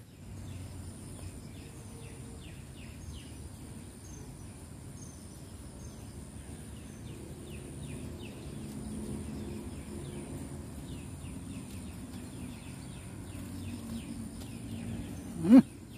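Riverside ambience: small birds chirping over and over, a steady high insect drone and a low, even background rumble. Just before the end comes one brief, much louder sound that rises in pitch.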